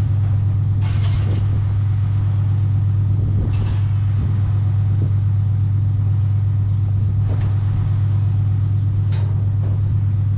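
A loud steady low hum, with a few short clanks and rattles scattered through it, fitting the steel pen panels and chain being knocked as goats are handled.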